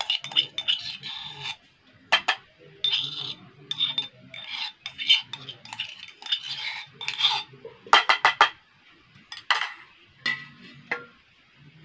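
Fingers scraping the inside of a small steel cup, with the cup and utensils clinking against steel bowls: an irregular string of short scrapes and taps, with a quick run of four sharp clinks about eight seconds in.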